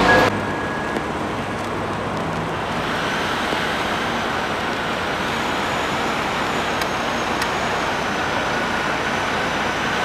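Steady road traffic noise of a city street, an even hum of passing vehicles.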